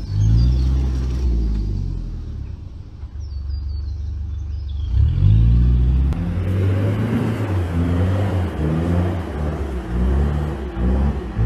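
A 4x4 cab-over truck's engine labouring in low gear through mud, the revs rising and falling unevenly. It eases off from about two seconds in, picks up again near five seconds, and from about six seconds a rougher rushing noise joins it.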